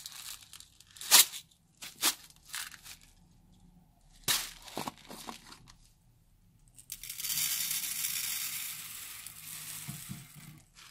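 Several sharp clicks as the plastic jar of purple decorative sand is handled and its lid taken off. Then, about seven seconds in, the coarse grains pour out onto a glass baking dish in a steady stream lasting about three and a half seconds.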